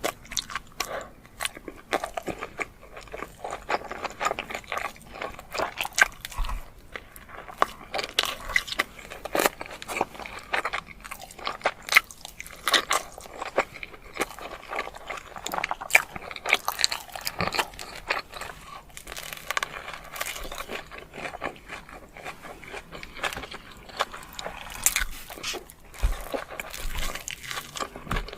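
Close-miked eating of chilli cheese dogs: repeated biting and chewing with many short, irregular crunchy and wet mouth clicks.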